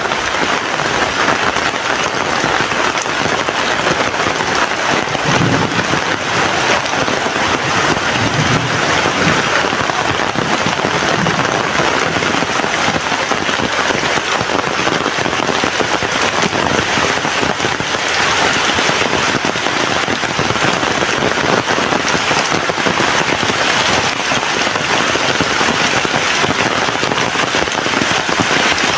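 Heavy rain falling, a loud, steady hiss of drops with no let-up.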